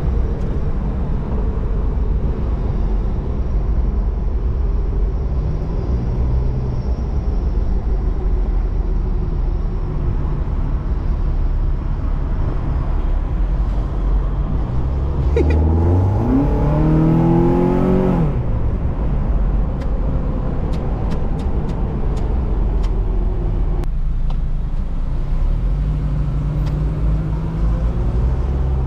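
Interior sound of a lowered Mazda Miata's four-cylinder engine and road noise while driving. About fifteen seconds in, the engine revs up sharply and then drops back, and a few light ticks follow a few seconds later.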